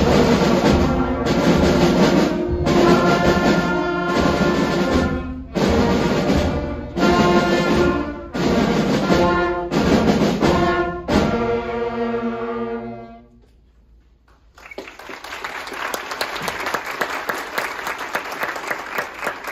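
Elementary school concert band of brass and woodwinds playing in short loud phrases with brief stops between them, ending on a held chord that fades out. About a second and a half later the audience applauds.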